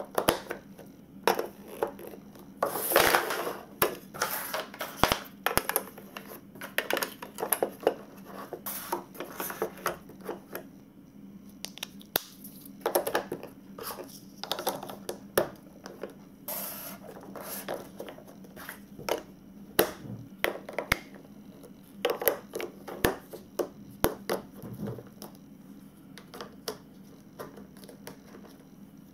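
Hard plastic marble-run pieces and building blocks being handled and fitted together: irregular clicks, knocks and scrapes of plastic on plastic, with a longer scrape about three seconds in.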